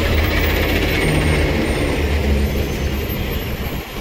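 Heavy vehicle engine running with a steady low rumble.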